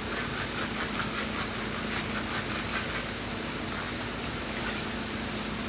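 Trigger spray bottle squirting water onto a painted car panel in quick succession, about five squirts a second for about three seconds, wetting the paint for wet sanding.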